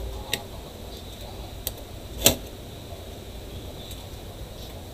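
Small hard parts being handled off to the side: a light click, a second click, then a sharper knock with a short ring about two seconds in, over a low steady hum.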